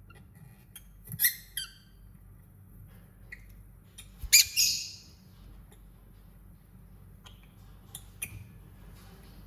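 Lovebird giving a few short, shrill squawks and chirps in separate bursts, the loudest about four seconds in.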